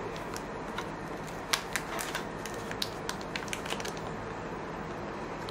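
Trading cards and a foil pack wrapper being handled, giving scattered light clicks and crinkles over a steady background hum.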